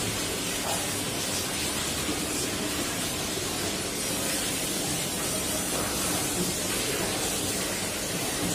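Steady background hiss, with faint soft sounds of a person eating rice and curry by hand from a steel plate.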